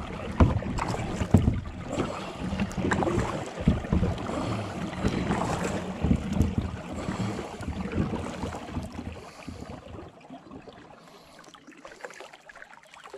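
Paddle strokes in the water and irregular knocks against a small boat's hull as it is paddled across a river, settling to a quieter hush of water after about ten seconds.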